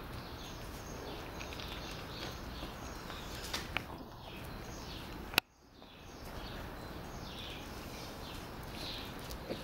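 Faint outdoor background noise with faint, short, high chirping calls. A few sharp clicks sound around the middle, the loudest a little over five seconds in, followed by a brief dip to near silence.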